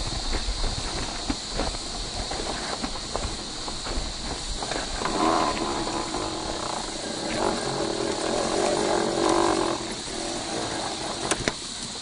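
Electric motor and gearbox of a 1/6-scale FMS Jimny RC crawler whining as it drives over a forest trail, with tyres crunching over pine needles and small stones. The whine turns louder and strained for a few seconds in the middle as the truck climbs onto rocks.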